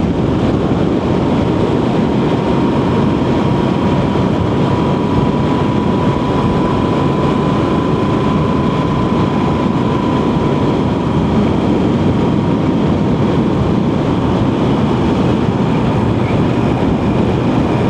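Motorcycle running at a steady road speed, with an even rush of engine and road noise and a faint steady whine that fades out past the middle.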